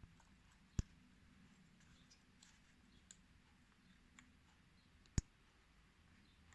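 Faint small clicks and ticks of metal tools against a phone's internal parts, with two sharper clicks about a second in and about five seconds in.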